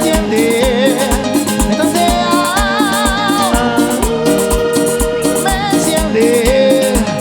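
Latin dance music in an instrumental passage, with a steady kick-drum beat about twice a second under wavering melody lines.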